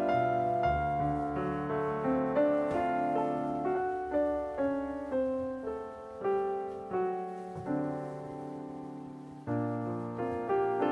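Background piano music: a slow melody of single notes, each struck and fading.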